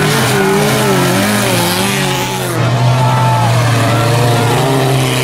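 Autocross cars' engines revving hard on a dirt track, several engine notes rising and falling as the cars accelerate and corner. About halfway through, one engine settles into a steady note.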